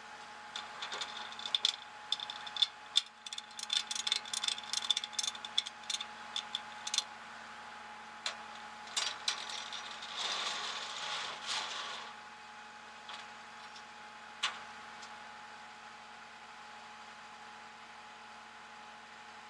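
Metal tie-down chains and hooks clinking and rattling in quick bursts for the first seven seconds or so as a car is secured on a flatbed tow truck's deck. A short rasping rush follows about ten seconds in, all over a steady hum.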